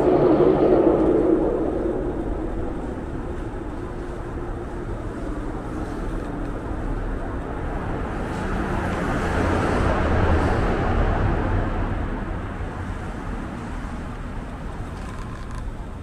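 Road traffic: a steady rumble of passing vehicles, loudest in the first second, then swelling again about eight to eleven seconds in as another vehicle goes by.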